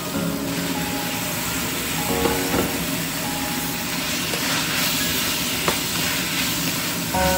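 Shredded cabbage sizzling as it hits the hot oil in a nonstick frying pan with browned sliced beef, stirred around with a spatula.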